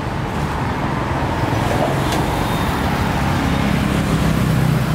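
Road traffic running by, with a vehicle engine growing louder toward the end as it comes close.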